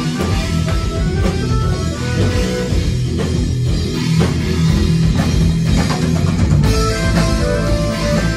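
Live rock band playing loudly: electric guitar, bass guitar and drum kit.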